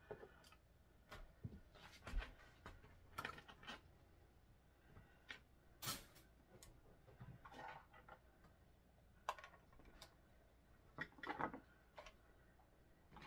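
Small items being picked out of a basket and set down on a wooden coffee table: scattered light clicks, taps and rustles at irregular intervals.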